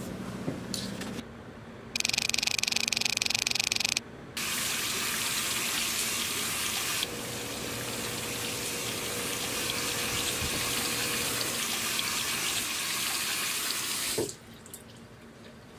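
Bathroom tap running into a sink: a steady rush of water that stops abruptly near the end. It is preceded by a louder, rougher two-second burst of noise.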